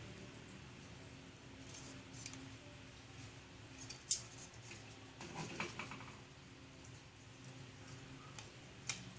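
Faint scattered clicks and light taps, with a sharp click about four seconds in, a short cluster of taps a little after, and another sharp click near the end.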